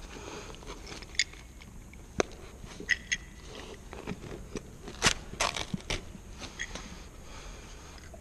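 Off-cut strips of tight-backed Shaw non-ravel commercial carpet being pulled out of a freshly double-cut seam: scattered crackles and scrapes with a handful of sharp clicks, the loudest cluster about five seconds in.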